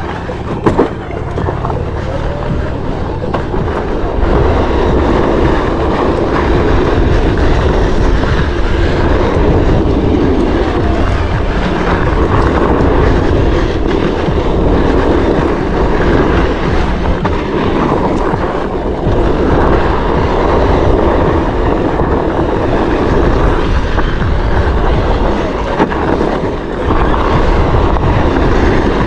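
A Onewheel board riding fast along a dirt trail: a steady, rough rolling rumble from the tire on the trail surface, mixed with wind on the microphone.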